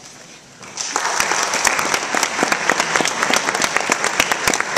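Audience applauding, breaking out about a second in and carrying on as a dense crowd of claps.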